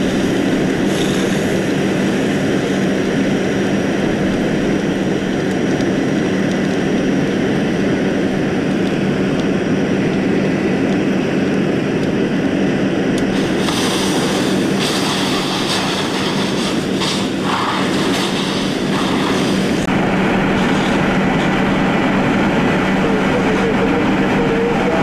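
Semi truck fully engulfed in fire: a steady roar of flames over the constant drone of a running engine with a steady low hum. For several seconds past the middle, louder hissing and crackling joins in.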